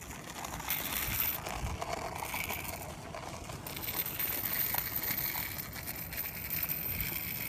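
Small plastic skateboard's wheels rolling steadily over rough asphalt, a continuous rolling noise.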